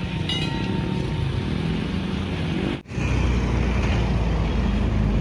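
A level-crossing warning bell strikes once near the start over a low engine rumble. After an abrupt cut, the steady, louder rumble of road traffic follows: cars and motorcycles moving over a crossing.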